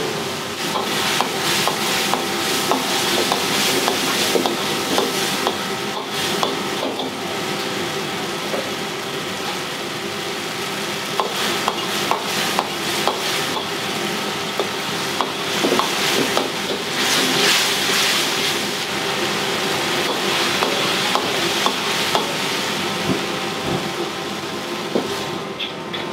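Wok cooking over a high flame: a metal ladle scraping and clacking against the wok many times over a steady sizzle of frying food, with a steady hum beneath.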